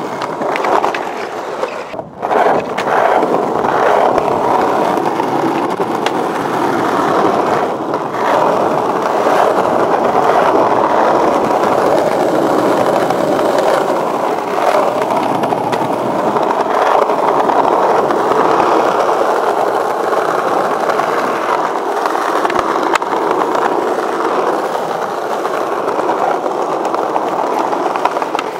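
Skateboard wheels rolling over stone paving slabs, a steady rolling noise with a brief drop and a few sharp clicks about two seconds in and again near eight seconds.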